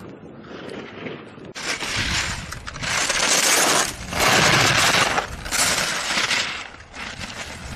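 Slalom ski edges scraping and hissing on hard-packed snow as the skier carves turn after turn. There are four loud scrapes about a second apart, one for each turn, loudest as the skier passes close.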